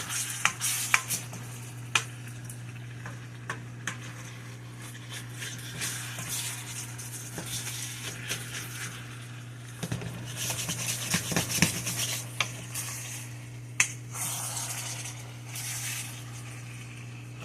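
A utensil knocking and scraping in a pan while rice noodles are stirred in sauce, with sizzling that comes and goes, over a steady low hum.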